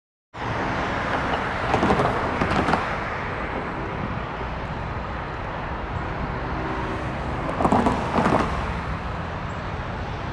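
Steady distant engine rumble outdoors, cutting in abruptly, with two louder rushing swells of noise, each a double rush, about two seconds in and again about eight seconds in.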